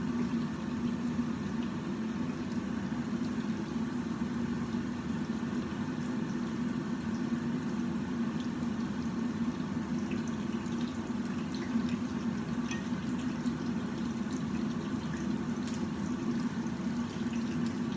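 Eggplant cooking in a pan of liquid on the stove: a steady bubbling, watery noise with scattered faint pops.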